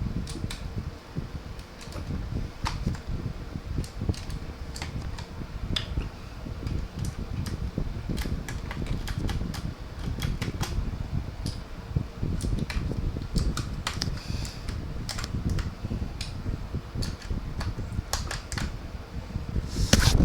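Scattered, irregular clicks from a K28 mechanical keyboard being handled and pressed, over a steady low rumble.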